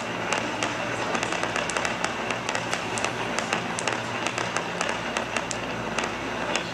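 Fireworks going off: a rapid, dense run of crackling pops and bangs, several a second, over a continuous rumbling haze.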